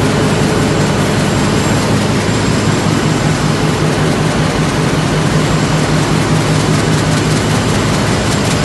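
Flexo folder-gluer printer running at production speed: a loud, steady mechanical din over a low hum.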